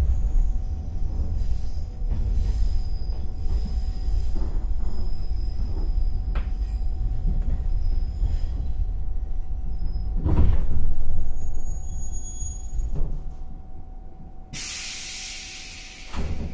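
Cabin of 115-series electric train car KuHa 115-552 rolling slowly with low bogie rumble as it brakes into a station. About ten seconds in there is a loud knock, then a brief high squeal as it stops. Near the end a sudden loud air hiss as the pneumatic doors open, followed by a thump.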